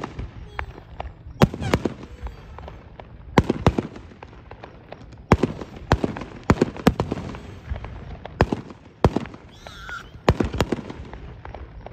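Fireworks going off: a dozen or so sharp bangs and cracks at irregular intervals, some close together, over a low rumble.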